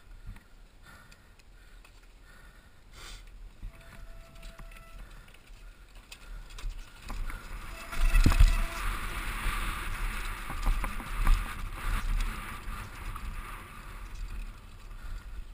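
Mountain bike rolling fast down a dirt trail: tyres on dirt and the bike rattling over bumps. It is quieter for the first several seconds, then a hard jolt about eight seconds in is followed by louder, rougher rolling with scattered knocks.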